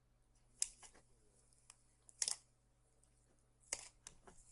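Slime being squeezed and worked by hand, giving three short, faint pops about a second and a half apart.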